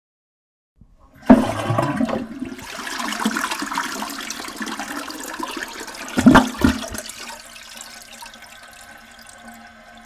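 A toilet flushing. Rushing water starts suddenly a little over a second in, and a second loud surge comes about six seconds in. It then dies down to a quieter steady hiss with a low hum.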